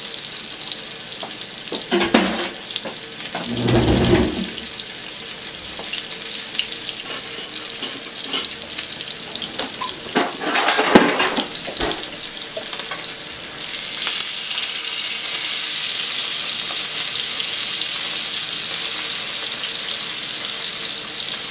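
Red snapper fillet frying skin-side down in a pan: a steady sizzle that gets louder about two-thirds of the way through. A few knocks and clatters of kitchen handling come in the first half, the loudest about eleven seconds in.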